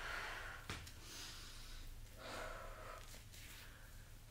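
A woman breathing audibly as she holds a side-bending stretch: a few soft, slow breaths in and out.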